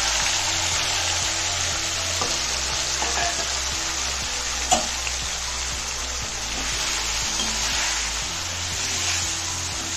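Marinated chicken pieces sizzling in hot oil in a metal kadai, with a slotted spoon stirring them. A single sharp tap comes about five seconds in.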